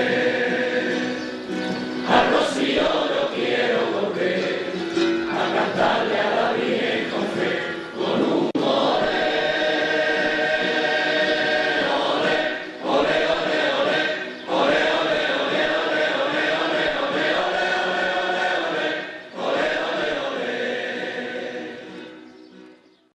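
A choir of many voices singing a religious hymn together, phrase by phrase with short breaks between, fading out near the end.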